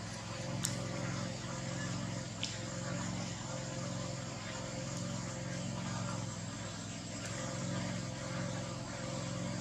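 A motor running with a steady low hum, with two short clicks, one under a second in and one about two and a half seconds in.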